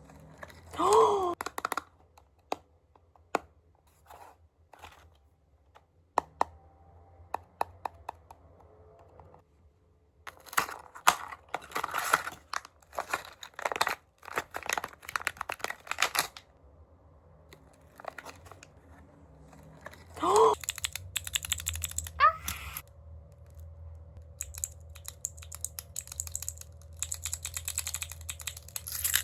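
Keycap fidget toy being pressed: runs of rapid, sharp keyswitch clicks with scattered single clicks between. Two short sliding squeaks stand out, one near the start and one about two-thirds of the way in.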